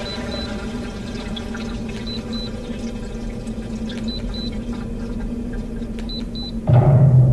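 Electronic noise music played from a cassette: a steady layered drone with pairs of short high beeps about every two seconds. Near the end a much louder low drone cuts in abruptly.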